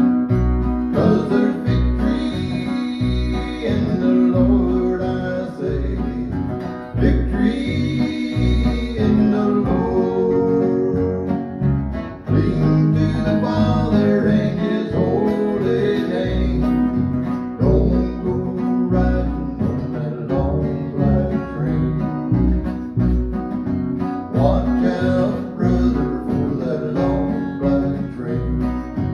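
Acoustic guitar strummed and upright bass plucked together, playing a country gospel song with a steady beat.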